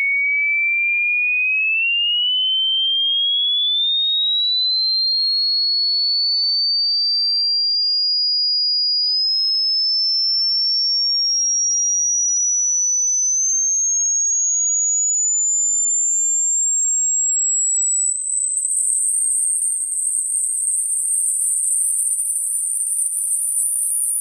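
Electronic sine test tone sweeping steadily upward in pitch, from about 2 kHz to about 10 kHz, as used in a high-frequency hearing test. From about 18 seconds in, the tone turns rough and wavering.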